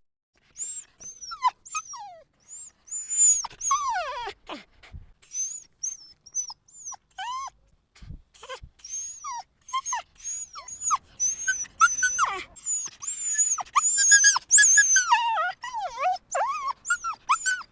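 Dog yelping: many short, high-pitched yelps and cries, many sliding down in pitch, coming thicker and faster in the second half.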